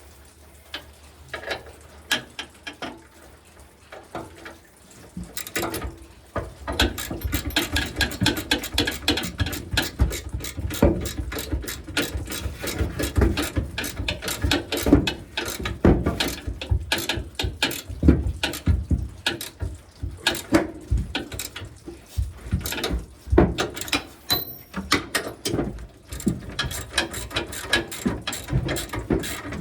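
Hand socket ratchet clicking as bolts are turned. A few separate clicks come first, then steady, rapid ratcheting from about five seconds in, with a short lull near the end.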